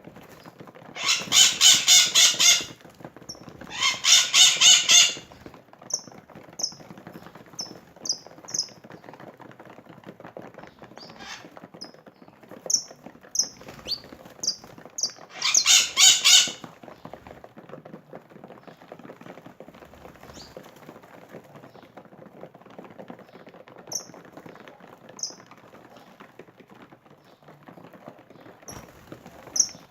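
Birds calling: three loud, rapidly pulsing calls, about a second in, around four seconds in and midway through, with short high chirps scattered throughout.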